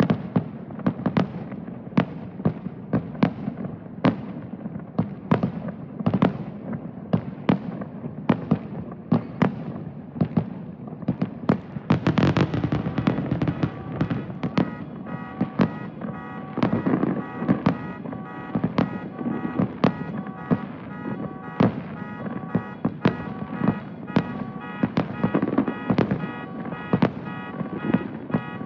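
Aerial fireworks going off in rapid succession, sharp bangs two or three a second, with a dense burst of crackling about twelve seconds in. From about halfway, a pulsing electronic alarm tone, a car alarm, sounds under the blasts.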